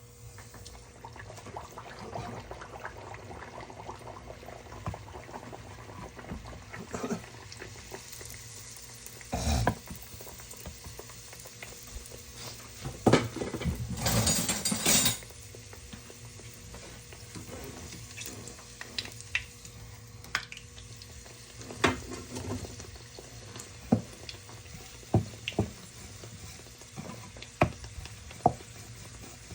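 Hot oil sizzling in a pan as fried bake dough cooks, with scattered knocks and clinks of utensils against pans. A louder rush of noise lasts about two seconds midway through.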